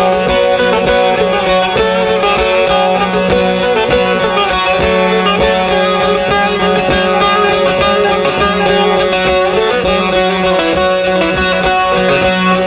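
Instrumental Turkish folk-song (türkü) music led by a plucked string instrument, over a steady low drone.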